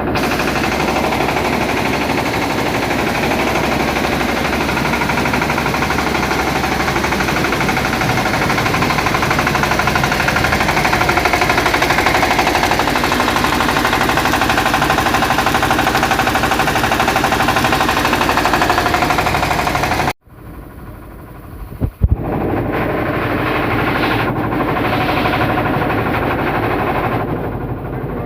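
Engine-driven rice machine running with a steady, dense mechanical clatter. About twenty seconds in the noise cuts off abruptly to a quieter stretch with a sharp click, and the loud machine noise returns about two seconds later.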